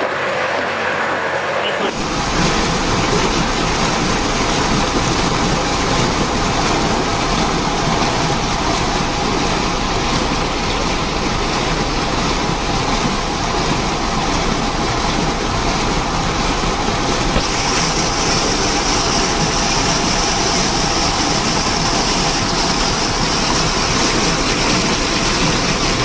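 Steady machine noise from the electric geared motor of a slurry-tank mixing agitator running, setting in about two seconds in, with a high hiss joining it past the middle.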